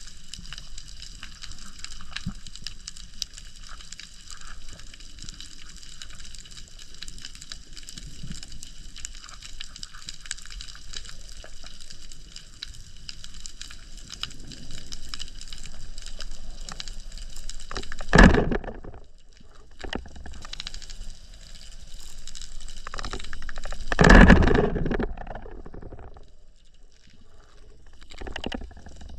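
Underwater sound picked up by a freediver's camera: a steady high crackling hiss of the sea, with two loud rushes of water past the camera, about 18 and 24 seconds in.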